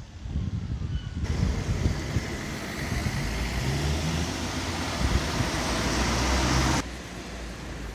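Road traffic: a motor vehicle's engine and tyre noise close by. It starts abruptly about a second in and cuts off suddenly near the end.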